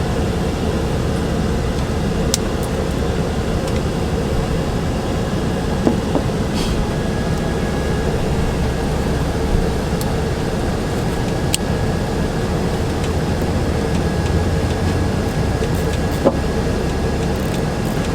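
A steady low machine drone, with a faint steady hum and a few light clicks and ticks over it.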